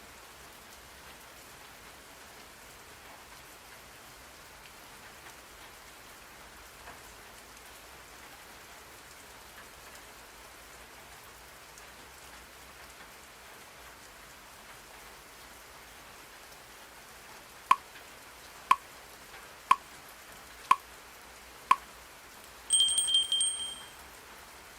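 Steady rain-sound white noise. About 18 seconds in, a digital timer counts down with five short beeps one second apart, then its alarm goes off briefly in a fast-pulsing high-pitched beeping, marking the end of the 50-minute session.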